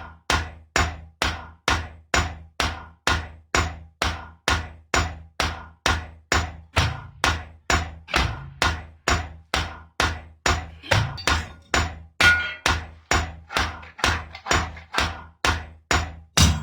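Steady, evenly paced strikes of a hand tool at work, about two and a half blows a second, with a low steady hum underneath.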